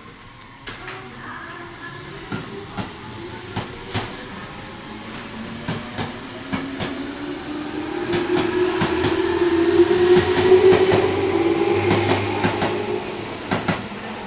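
Tobu 10050-series electric commuter train accelerating away from a station platform. The traction motor whine rises steadily in pitch and grows louder, peaking about ten seconds in, while the wheels click over the rail joints.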